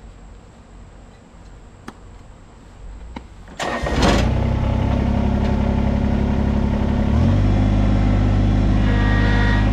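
Kubota BX23S compact tractor's three-cylinder diesel engine starting: after a few quiet seconds with a couple of faint clicks, it cranks briefly and catches at once, then idles steadily. A few seconds later the idle steps up slightly.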